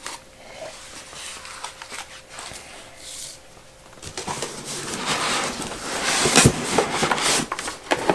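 Cardboard accessory boxes and packaging being handled: rubbing, rustling and light knocks. Quiet at first, it gets louder about four seconds in, with a sharp knock about six and a half seconds in.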